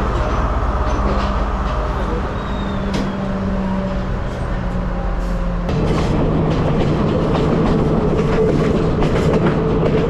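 Diesel passenger train running along the track: a steady engine drone with wheels clicking over the rails. About six seconds in, the drone drops in pitch and the sound grows louder, with more frequent clicks.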